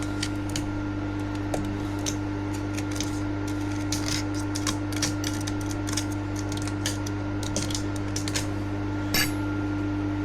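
Steady hum of a running milling machine, with light metallic clinks and ticks scattered through it and a sharper clink about nine seconds in.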